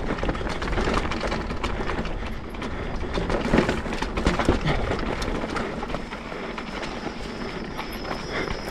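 Mountain bike riding down a loose, rocky trail: the bike rattling and clattering with many sharp knocks as the tyres hit stones, over a steady low rumble, easing off a little near the end.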